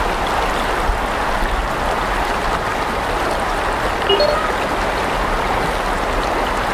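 Steady rushing of river water over a riffle, heard through a wet microphone.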